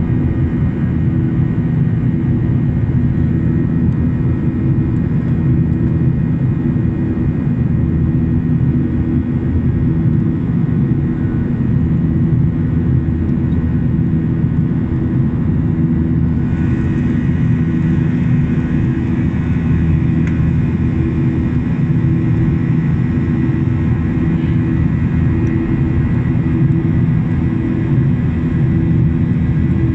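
Boeing 737-800's CFM56 jet engines running steadily: a constant low rumble with a steady hum, a little more hiss coming in about halfway through.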